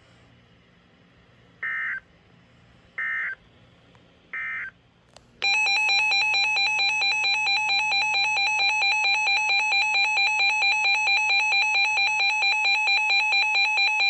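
Three short bursts of SAME digital data tones from a Reecom NOAA weather alert radio. About five seconds in, the radio's loud electronic alert alarm starts, a rapidly pulsing beeping tone that runs steadily for about nine seconds.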